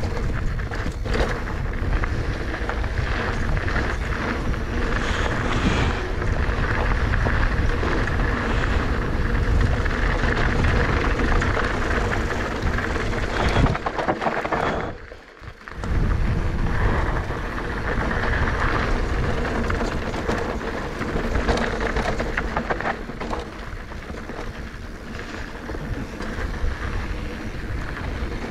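Wind buffeting the microphone over tyres rolling on a dirt trail, with the Giant Trance E+ 2 electric mountain bike rattling and knocking over bumps. The noise drops away for about a second near the middle.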